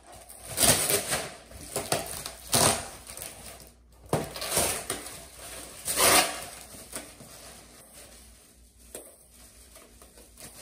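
Clear plastic furniture wrap crinkling and rustling as it is cut with scissors and pulled off a pedestal table. There is a series of loud rustling bursts over the first six seconds, and fainter handling after that.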